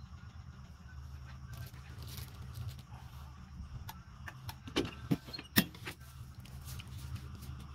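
Soft rustling of hands smoothing a cotton T-shirt and DTF transfer film, then three sharp clacks about five seconds in, the last the loudest, as the heat press is brought down and clamped onto the shirt. A steady low hum runs underneath.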